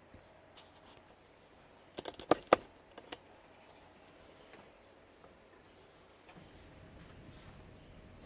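A quick cluster of sharp clicks and knocks about two seconds in, with one more a moment later, from hard objects being handled, over faint steady chirping of crickets.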